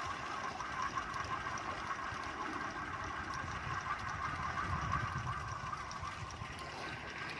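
Boat engine running steadily, a fluttering hum over a low rumble, with water noise.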